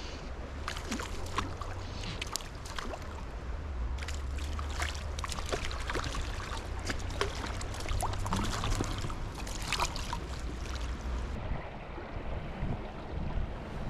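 Wind rumbling on the microphone over running stream water, with many short splashes and clicks of water being disturbed close by.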